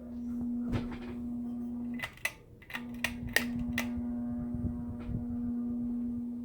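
Harbor Breeze Springfield ceiling fan motor running with a steady electrical buzz, typical of a fan on a variable-speed wall control. About two seconds in the buzz briefly drops out, and several sharp clicks follow over the next two seconds.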